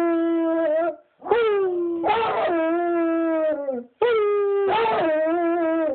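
Basset hound howling in long, drawn-out howls. One ends about a second in, a second runs to nearly four seconds, and a third begins right after; each turns rough and raspy partway through.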